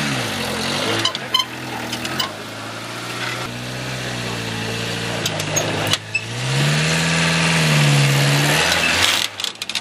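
Off-road 4x4's engine working over rough ground, its revs rising and falling, with a long higher rev about two-thirds of the way in. A few sharp clicks are heard along the way.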